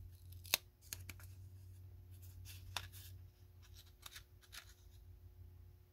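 Faint rustling of a small kraft-paper envelope being opened by hand, with a few light, sharp paper clicks scattered through it.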